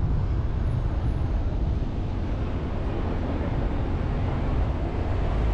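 Steady low rumble of road and wind noise from a car driving.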